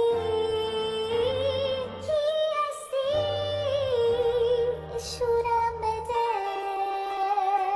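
Song music with a woman's voice singing long held notes with a slight vibrato, moving between a few pitches.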